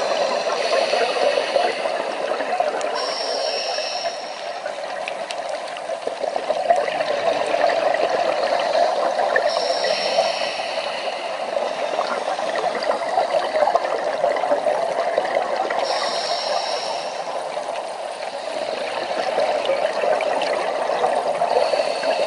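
Underwater sound on a coral reef: a steady rushing, bubbling wash with scattered faint clicks, and a brief higher hiss that comes back about every six seconds.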